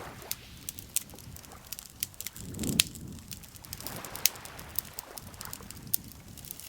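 Campfire wood crackling with irregular sharp pops, the loudest a little under three seconds in, over gentle lake water lapping in slow swells.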